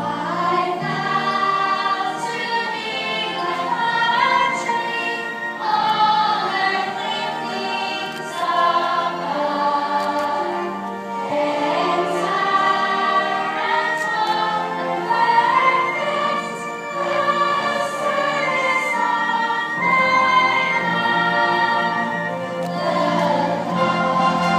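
Slow music: a moving melody over a steady held low note.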